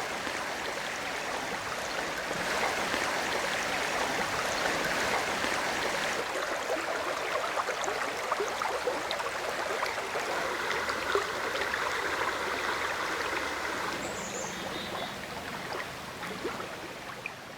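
Flowing river water, a steady rushing and gurgling stream sound that eases off slightly over the last few seconds.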